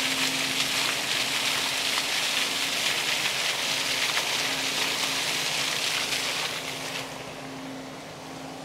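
Outdoor lakeside ambience: a steady high-pitched buzzing hiss that drops away about seven seconds in, over a faint steady low hum.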